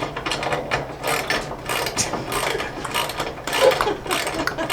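Ratchet wrench clicking rapidly as nuts are tightened onto bolts.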